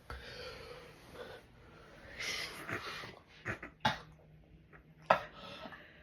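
A person's breathy wheezing and snorting noises, broken by several sharp short sounds about two, three and a half, four and five seconds in.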